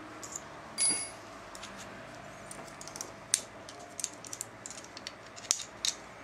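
Small steel parts of a hand-built rear derailleur clicking and clinking against each other as they are handled and fitted together. A brief metallic ring about a second in, then scattered light clicks.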